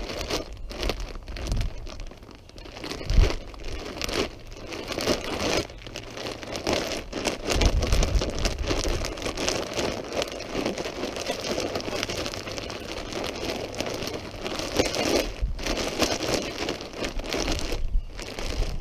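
Clear plastic bag of sawdust mushroom spawn crinkling and rustling as hands squeeze and knead it to break up the clumped spawn inside, with a couple of dull thumps.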